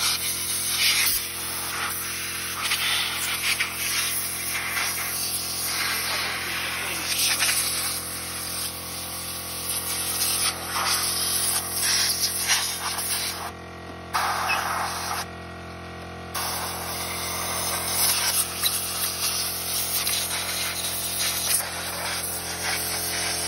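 Compressed air hissing in surges of changing strength as it blows dust out of a television's circuit boards and chassis, briefly stopping about two-thirds of the way through, over a steady low hum.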